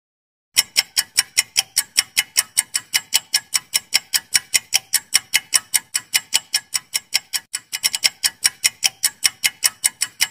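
Clock-ticking sound effect for a quiz countdown timer: rapid, even ticks, about five a second, starting about half a second in.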